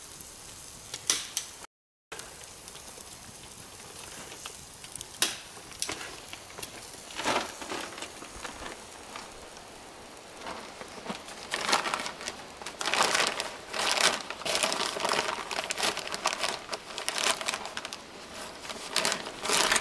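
Wood fire crackling with scattered sharp pops, then a denser run of crackling and rustling through the second half. The sound drops out completely for a moment just before two seconds in.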